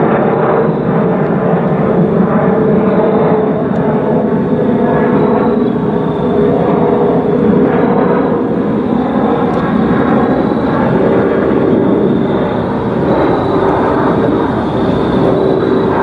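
Airbus A320-211 airliner flying over on its descent, a steady jet-engine rush with a held whistling tone over it.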